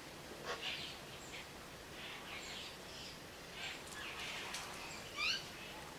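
Wild birds chirping and calling in short scattered notes over a steady background hiss, with a quick run of rising notes near the end, the loudest sound.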